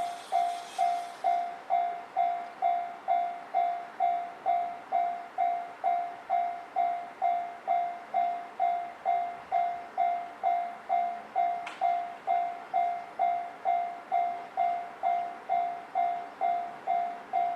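Railway level crossing warning bell ringing at an even rate of about two strokes a second, each stroke a ringing tone that fades quickly. A single sharp click sounds near the end.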